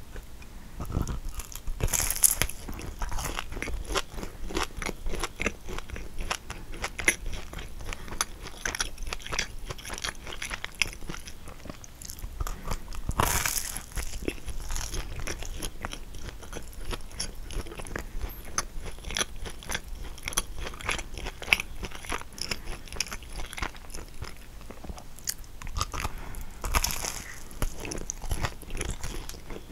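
Biting and chewing a caramelised kouign-amann: crackly crunching of the crisp sugary crust, with dense small crackles throughout. The loudest bites come about two seconds in, near the middle and near the end.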